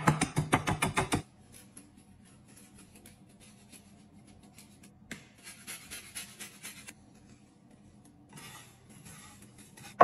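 Rapid strokes of a wooden rolling pin pounding crumbs in a glass baking dish, stopping about a second in. Later, quiet scratchy rasping of a lemon being zested on a rasp grater.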